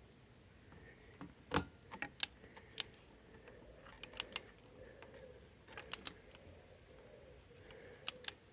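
Ratchet wrench clicking in short groups of two or three clicks every couple of seconds, as the handle is swung back between pulls while tightening the Yamaha RD350 YPVS barrel nuts toward 18 ft-lb.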